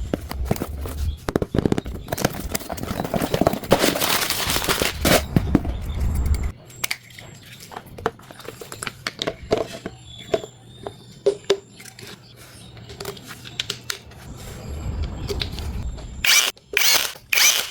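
Samsung washer-dryer making its complained-of noise while drawing water: a low hum with irregular clicking and crackling. The hum stops about six seconds in and comes back near the end, followed by three loud short noises.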